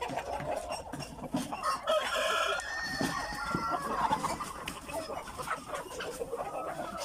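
Flock of chickens clucking, with a rooster crowing once about two seconds in.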